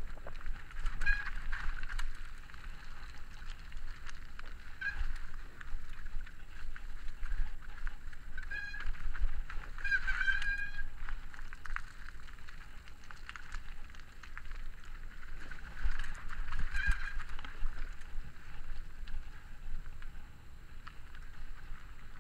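Mountain bike disc brakes squealing with a goose-like honk, about five short squeals; the longest and loudest comes about ten seconds in. Under them runs a constant low rumble from the ride.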